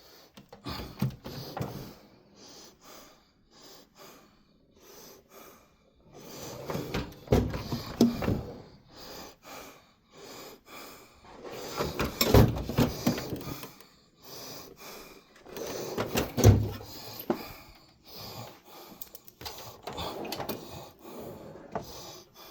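Clunks and rattles of a tool chest and its tools being handled, coming in several bursts a few seconds apart.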